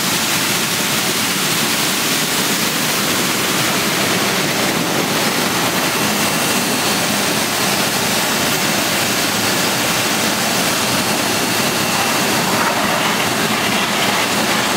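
Ginger washing-and-slicing production line running: a steady rushing of water sprays and machinery, with a faint high whine through the middle.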